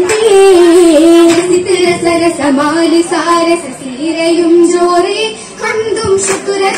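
Girls' voices singing an oppana song (Mappila oppana pattu), one melody line that winds up and down in long ornamented phrases.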